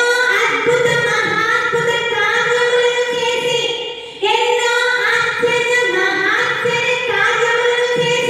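A woman singing a Telugu Christian worship song solo into a handheld microphone, in two long sung phrases, the second beginning about four seconds in.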